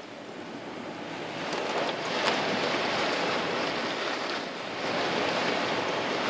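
Heavy rain pouring down in a storm, with wind, as a steady hiss that swells about two seconds in and stays strong.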